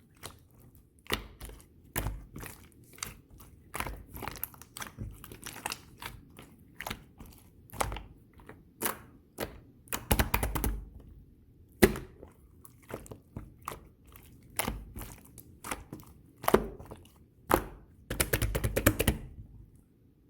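Orange pearl marbling slime being worked by hand, giving irregular sticky pops and clicks, a few of them sharp and loud, with denser crackly squishing twice.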